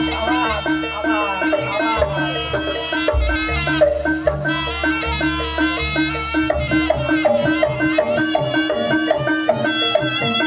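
Javanese jaranan music: a slompret (reed shawm) plays a wavering, bagpipe-like melody over a steady held tone, with drums and gongs beating underneath.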